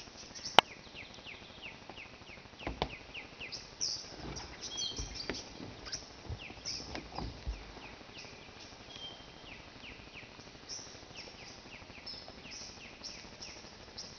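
Small forest birds calling, a steady scatter of short, high, falling chirps. A sharp click comes about half a second in, and a few low thumps follow in the first half.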